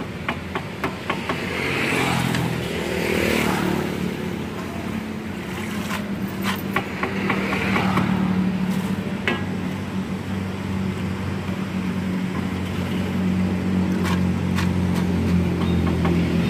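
Steady engine hum of road traffic, growing louder partway through, with scattered sharp clinks of a metal slotted ladle against a frying wok.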